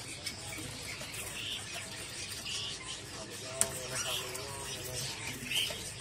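Caged birds in a bird market, short chirps coming about once a second over a busy background hum. A single sharp click sounds a little past halfway.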